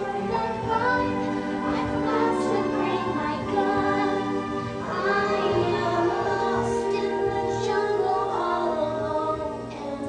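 A young girl singing a solo song over musical accompaniment, her voice sliding between notes over steady held chords.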